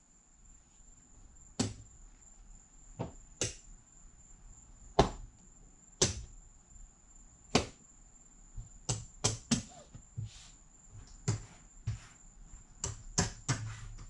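Casino chips clicking against each other as they are picked up, stacked and set down on a craps table layout: a dozen or so sharp, irregular clicks, some in quick pairs.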